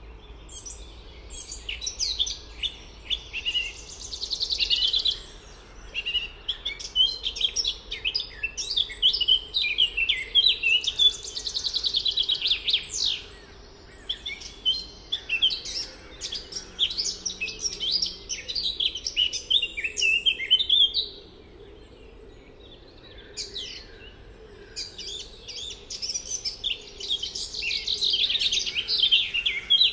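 Several songbirds singing in a continuous chorus of overlapping phrases, some ending in fast trills. The singing eases off for a few seconds a little past the middle.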